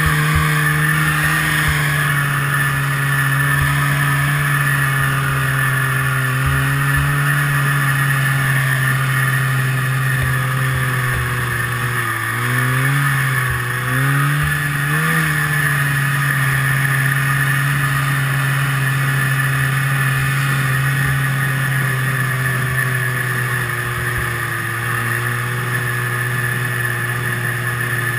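1974 Rupp Nitro 340 snowmobile's two-stroke engine running steadily under way, heard from on board. About halfway through its pitch wavers up and down a few times with throttle changes, then settles a little lower near the end.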